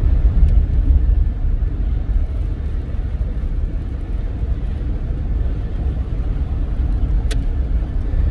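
Steady low road and tyre rumble heard inside a small car's cabin at highway speed on Cooper Discovery all-terrain tyres, over a slushy, sanded road. A single sharp click sounds about seven seconds in.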